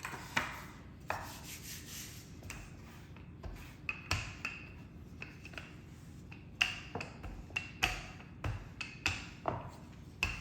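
Rolling pin rolling out pie dough on a board, giving many irregular knocks and clacks that come thicker in the second half.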